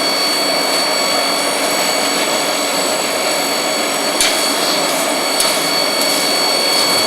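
Steady rushing roar of a blacksmith's forge with its air blower running, with a thin high whine over it. A couple of light knocks sound about four and five seconds in.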